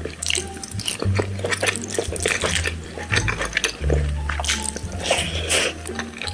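Close-miked wet chewing and lip-smacking of rice mixed with lentil dal and mashed potato: many short, sharp smacks and squishes in quick succession.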